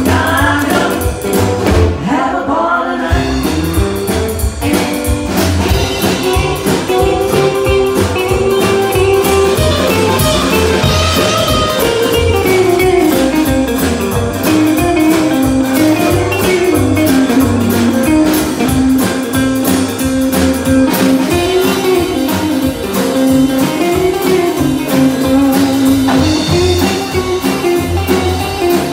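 Live rock and roll band playing: upright bass, drums, acoustic guitar and electric guitar, with a voice early on and a wavering lead melody through the middle.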